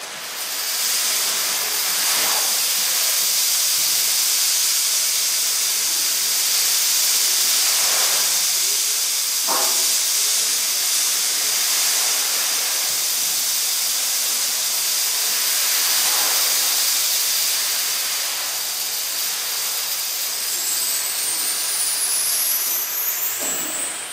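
Percussion ensemble holding a steady, high hissing wash of sound, rain-like, with soft swells and strokes every few seconds. Near the end, high whistling glides rise and fall over it.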